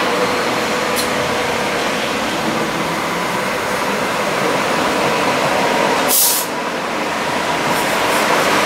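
Hong Kong MTR Light Rail car running slowly along the platform, giving a steady rolling and running noise, with a short sharp hiss about six seconds in.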